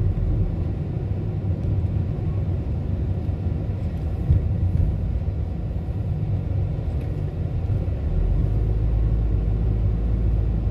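Steady low rumble of a car driving, heard from inside the cabin: road and engine noise. The deepest drone grows stronger and steadier about eight seconds in.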